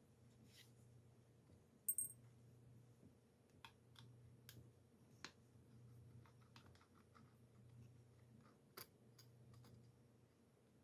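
Faint, scattered small clicks and ticks of a screwdriver backing out the tiny hard-drive screws in a laptop's base, with a sharper click about two seconds in and another near the end.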